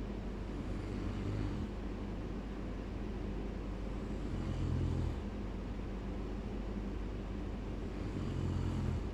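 A sleeping person snoring: three low snores about three and a half seconds apart, over a steady low hum.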